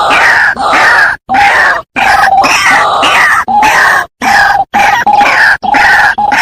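White-breasted waterhen (dahuk) calling: loud, harsh croaking calls repeated about twice a second, broken by several short, abrupt silent gaps.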